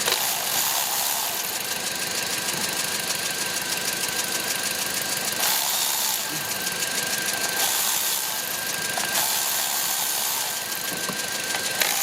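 2009 Toyota Matrix four-cylinder engine idling steadily with the hood open, with a fast, even ticking over the running sound; this is the engine being checked for a cylinder 1 misfire (code P0301).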